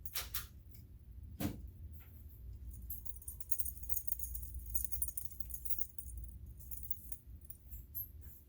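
Small metal objects jingling and clinking together for a few seconds, after a couple of sharp knocks near the start.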